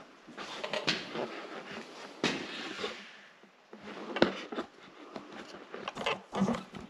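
Footsteps with irregular scuffs, scrapes and knocks, the loudest a little past the middle and near the end.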